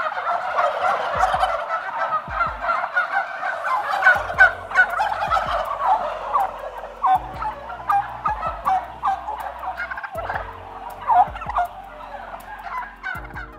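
Turkey gobbling: a long run of rapid, overlapping gobbles that grows quieter toward the end.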